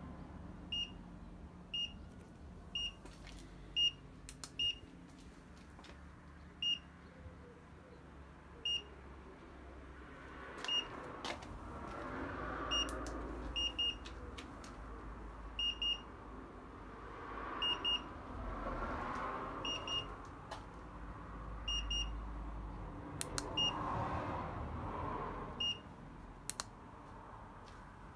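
E-bike turn-signal indicator beeping about once a second, a short high beep with each flash of the amber arrow, the audible reminder that the indicator is on. A broad rushing noise swells and fades three times underneath.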